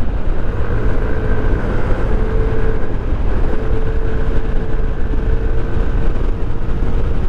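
Yamaha NMAX 155 scooter riding at a steady cruise, its single-cylinder engine giving a steady whine over a heavy low rumble of road and wind noise.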